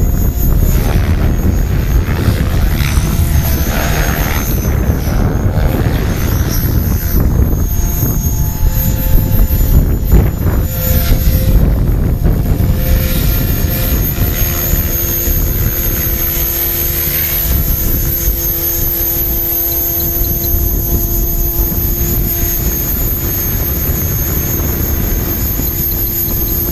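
Electric 600-size RC helicopter (HobbyKing HK-600 on a six-cell pack) flying, its rotor and motor whine shifting in pitch during the first half. From about halfway it settles into a steadier whine as it comes closer. A heavy low rumble runs underneath.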